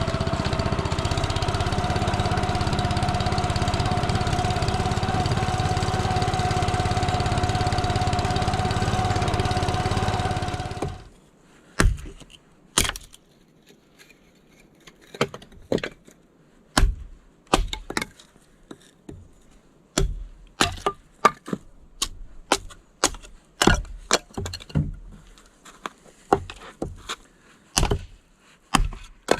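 A small engine runs steadily and cuts off about eleven seconds in. After it, a string of sharp, irregular knocks follows, roughly one or two a second, with quiet between them.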